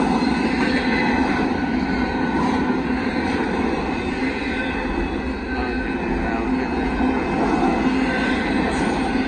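Kansas City Southern double-stack intermodal freight train rolling past at close range: a steady rumble and clatter of wheels on rail, with steady squealing tones from the wheels over it.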